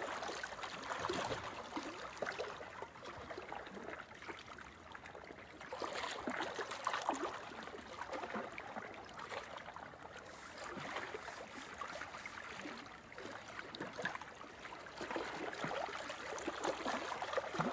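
Ocean waves washing up the shore. The surge of fizzing, trickling water swells and eases every four to five seconds.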